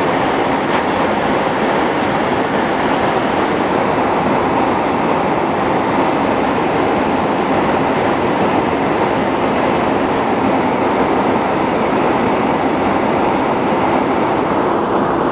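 Steady cabin noise of a Boeing 757 airliner in flight, heard from a window seat: the even rush of airflow and engine noise as the plane descends through cloud.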